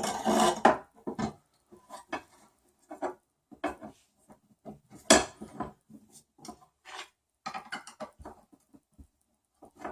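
Hard metal and plastic 3D printer parts handled on a workbench: irregular clicks, clinks and knocks, with a dense cluster of handling noise in the first second and a louder knock about five seconds in.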